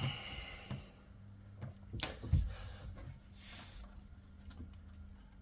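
Scattered light metallic clicks and a dull knock as a car's front brake caliper and its bolts are handled during removal.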